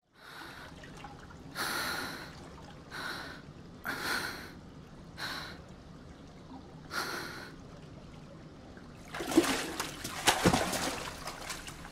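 A swimmer's heavy breaths, about six of them a second or so apart, then pool water splashing for a couple of seconds as the swimmer surfaces.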